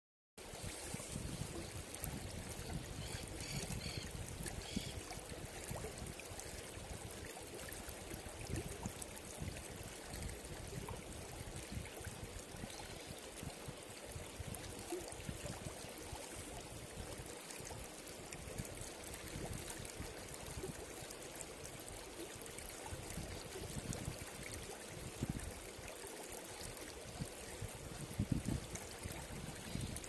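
Shallow mountain river flowing over and around rocks: a steady rush and ripple of water.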